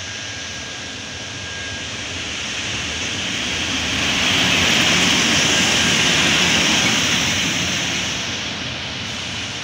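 PKP EP09 electric locomotive passing close by on the track. Its rushing noise builds to a peak about four to seven seconds in, then eases off.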